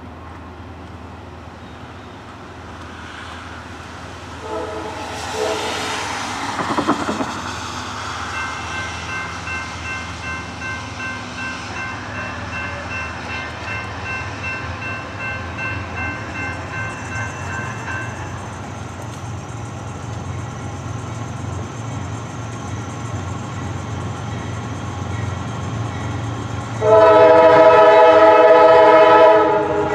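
Norfolk Southern GE AC44C6M diesel locomotive approaching, its rumble growing steadily louder. Its air horn sounds a brief note about five seconds in and a long, loud blast near the end.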